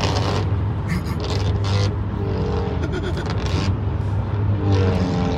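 Loud, raspy aftermarket exhaust on a Honda, heard from a car following close behind: a steady low drone whose pitch rises and falls as the car accelerates and eases off, with a ragged rasp on top that sounds like a goat vomiting.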